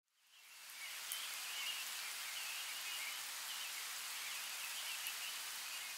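Steady rain falling on trees and foliage, fading in over the first second, with birds chirping faintly through the rain in the first few seconds.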